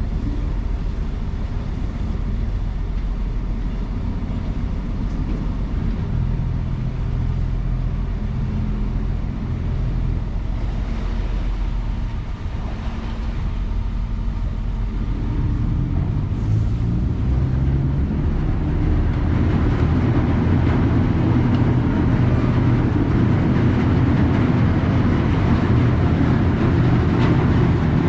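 The MV Hoy Head ro-ro ferry's engines running with a steady low drone. The sound grows louder and fuller about two-thirds of the way through.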